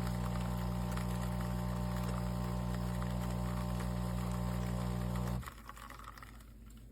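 De'Longhi Rivelia espresso machine running with a steady mechanical hum, which cuts off abruptly about five seconds in.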